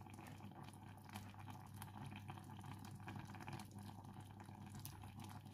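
Faint crackling and bubbling of a fish and vegetable stew simmering in a stainless steel pot, over a steady low hum.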